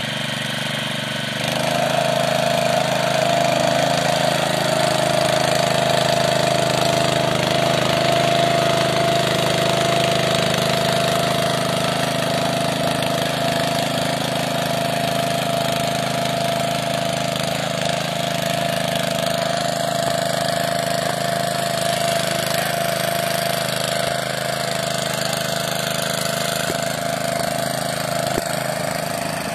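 Petrol Honda GX engine of a Meccanica Benassi BL-105 walk-behind tractor running steadily as it pulls a furrowing plough through the soil. The engine gets louder about a second and a half in, then holds an even note.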